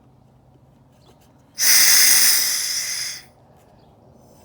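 Compressed air from a Kobalt 20-gallon oil-free air compressor set at 100 psi, hissing out in one loud burst about a second and a half long, easing off slightly before cutting off.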